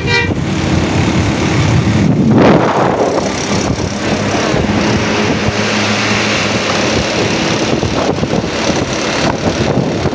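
Road traffic: a steady engine drone with the louder rush of a vehicle passing close by about two and a half seconds in.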